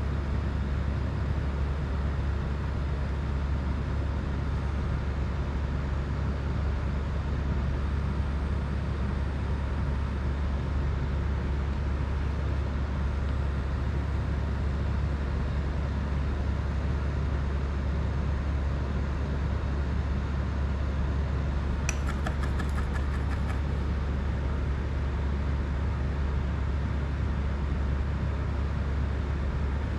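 Steady low hum of running machinery with an even hiss over it, and a short run of quick clicks about two-thirds of the way through.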